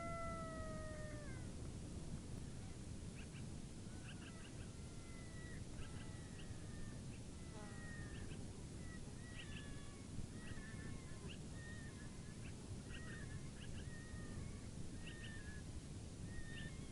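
Coyote vocalizing: a long, steady howl that ends about a second in, followed by a run of short, high yips and wavering calls, scattered over a steady low background rumble.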